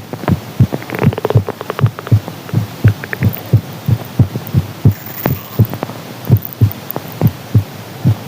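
A human heartbeat recorded close against the chest, beating quickly and regularly in paired lub-dub thumps. Heavy breathing is heard as brief rushes of breath noise about a second in and again near the middle.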